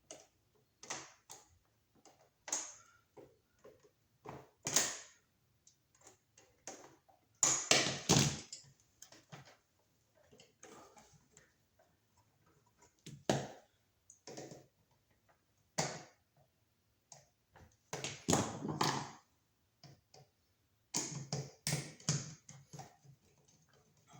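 Irregular clicks, taps and scrapes of hand tools working a wall receptacle's screw terminal as the white wire is looped around it and screwed down, with two longer rasping passes.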